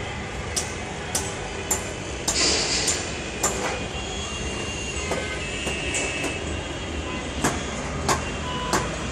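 Steady city noise heard from a high window, with sharp clicks that come about every half second at first and then at irregular gaps, a brief hiss about two and a half seconds in, and a few faint held tones.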